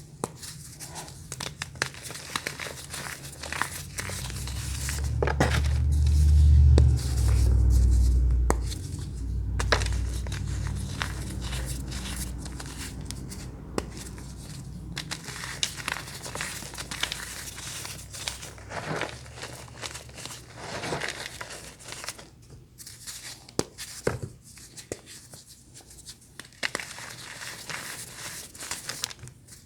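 Close-miked crunching and crumbling of brittle crunchy bars, a dense run of irregular crackles and snaps. A few seconds in, a deep low rumble swells for about five seconds and is the loudest part.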